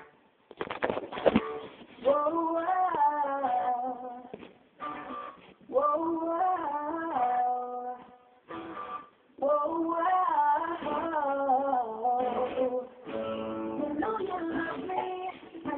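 Recorded acoustic pop song: a young male singer's high voice over acoustic guitar. A few guitar strums come first, and the voice comes in about two seconds in, sung in phrases with short breaks.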